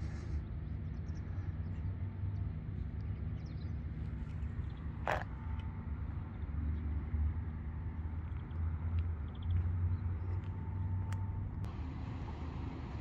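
Steady low outdoor rumble, with a single sharp short sound about five seconds in.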